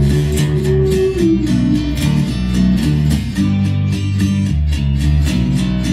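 Instrumental passage of a song: an electro-acoustic guitar strummed in a steady rhythm over a low bass line, with a held higher note that stops about a second in.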